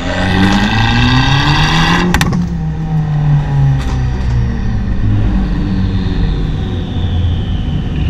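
Abarth 595's turbocharged four-cylinder with an Akrapovic exhaust accelerating, its pitch rising for about two seconds, then a quick cluster of sharp exhaust pops, with two more single pops a couple of seconds later. After that the engine runs on at lower revs, heard from inside the cabin.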